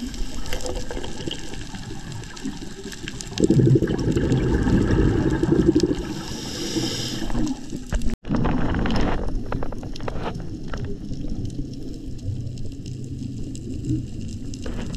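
Scuba regulator breathing underwater: a loud, low bubbling exhalation lasting about four seconds, with a high hiss near its end, over a steady watery background. The sound cuts out for an instant about eight seconds in.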